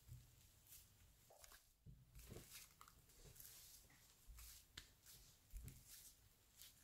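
Thick grey slime squeezed and pressed by hand around a magnet octahedron: faint, irregular crackles and soft squishes, with a few dull low thuds.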